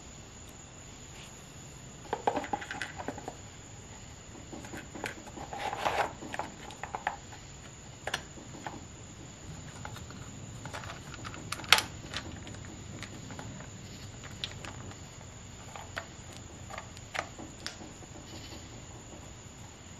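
Scattered plastic clicks, taps and rattles of a Husqvarna 323L string trimmer's engine cover and parts being handled and fitted back on by hand. The clicks come in clusters in the first half, with one sharp, loudest click near the middle.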